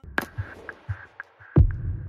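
Electronic background music: a sharp hit just after the start, then a faint steady tone with light ticks, and a deep bass thump about a second and a half in.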